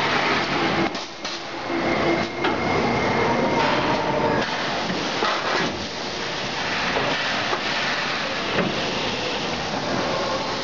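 Jandi's GF-R1011E/SVA servo-drive plastic bag-on-roll making machine running: a steady, loud mechanical clatter of rollers and the sealing and cutting units. A few sharp knocks stand out while the automatic winder changes rolls.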